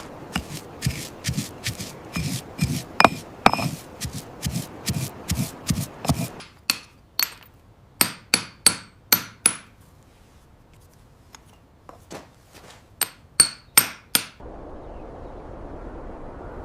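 A hammer striking a metal chisel on stone, about two blows a second with dull thuds beneath for the first six seconds. Then come two runs of sharper, ringing taps with a short lull between them.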